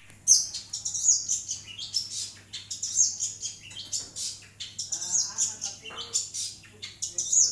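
Long-tailed shrike (pentet) singing a fast, varied stream of high chattering notes, with a lower, harsher stretch about five seconds in.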